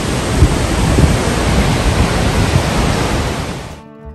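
Huilo Huilo waterfall pouring, a loud steady rush of water heard close up at the base of the falls. Near the end it cuts off and acoustic guitar music starts.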